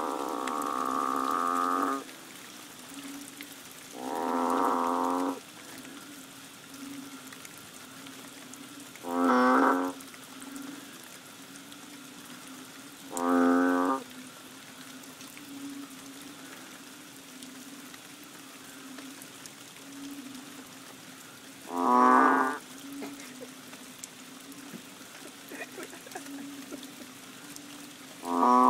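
Banded bullfrogs (Kaloula pulchra) giving low, mooing calls: six loud calls a few seconds apart, the first about two seconds long and the later ones shorter, with a faint steady low hum between them.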